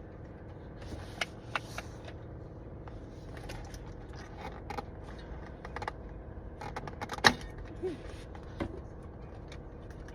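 Scattered small clicks and rattles of hands and tools working the plastic trim clips on a BMW X6M's steering column, with one sharp click about seven seconds in, over a steady low hum.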